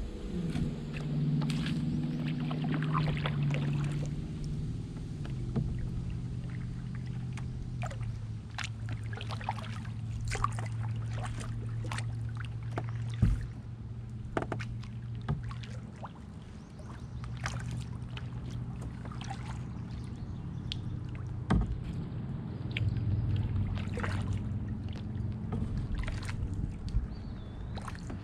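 Canoe on the water: many scattered sharp knocks and splashy clicks of the paddle and water against the hull, over a low steady hum that shifts in pitch now and then.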